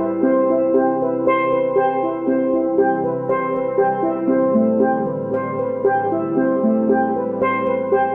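Background music: a steelpan instrumental over drums, with bright pitched notes in an even, steady rhythm.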